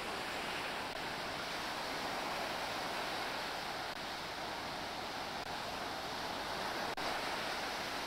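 Ocean surf breaking and washing up a sandy beach, a steady rushing noise, with a brief click about seven seconds in.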